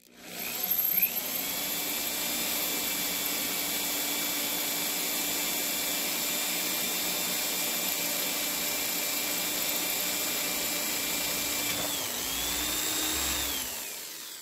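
Electric drill with a small steel-cutting twist bit boring through a steel wheel bolt, finishing a cross-hole for a retaining pin. The motor runs at a steady whine. About twelve seconds in the pitch dips, then spins back up briefly and winds down as the drill stops.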